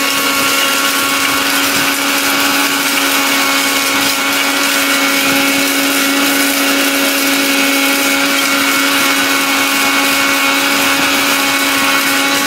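Novena Blackberry 1200 W blender motor running steadily at full speed, grinding whole cinnamon sticks to powder in its stainless-steel jar on a finishing run. It makes a steady whine over the hiss of the grinding spice.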